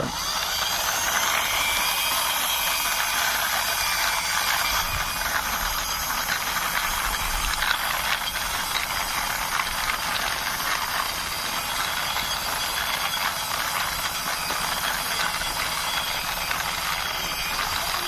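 Plastic toy car pushed by hand along rough concrete, its wheels and mechanism making a steady, rapid clicking rattle.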